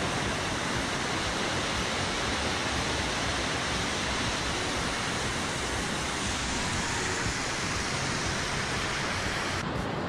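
Small waterfall on a spring-fed creek, water cascading over mossy rocks close to the microphone: a loud, steady rushing noise.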